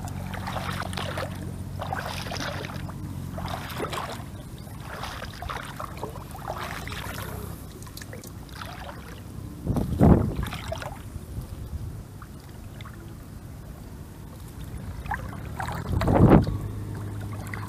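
Shallow water splashing and sloshing as a person wades knee-deep and lifts a fishing net, in uneven repeated strokes, with two louder low bumps about ten and sixteen seconds in.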